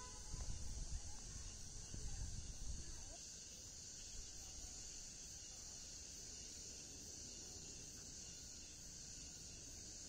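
Steady, high-pitched insect chorus. Low rumbling noise in the first three seconds.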